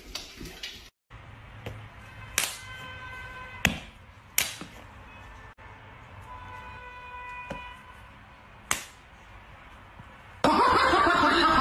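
Edited-in comedy sound effects over a dog clip: several sharp whip-like snaps and short held musical tones. A loud, noisy burst takes over near the end.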